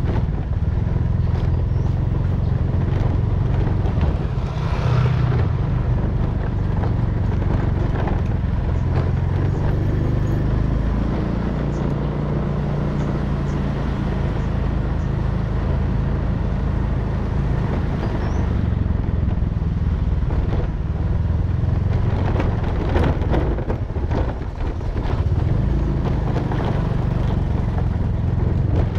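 Motorcycle engine running steadily at riding speed, with scattered short knocks and rattles as it rides over a cracked, rough road.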